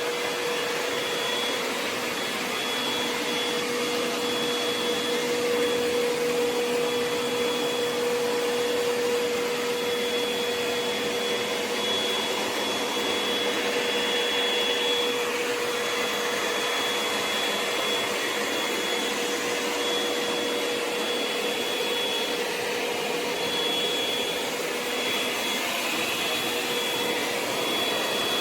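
ECOVACS DEEBOT X9 Pro Omni robot vacuum running steadily: an even suction rush with a low hum and a high whine that keeps dropping out and coming back.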